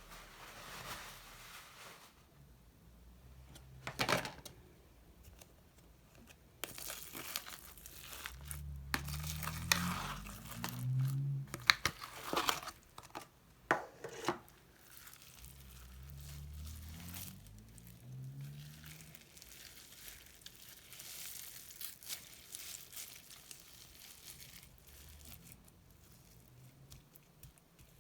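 Slime being mixed and kneaded by hand, giving irregular sticky crackles, pops and clicks, busiest in the middle.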